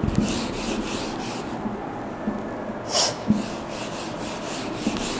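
Whiteboard eraser wiping marker off a whiteboard in quick back-and-forth strokes, about four or five swishes a second, with a pause near the middle and one short louder swish about three seconds in.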